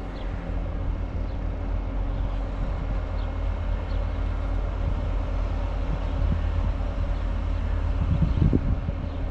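Heavy diesel farm machinery running steadily, a constant engine hum with no breaks.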